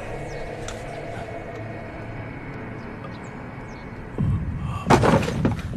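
A drama soundtrack's quiet background tone, then about four seconds in a deep throbbing hum starts up, with a brief loud rushing burst about five seconds in.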